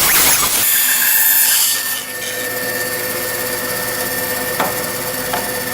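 Bandsaw cutting through a 2x4 wood block, the cut finishing within the first two seconds. The saw then runs on without load at a steady pitch, with two light knocks near the end.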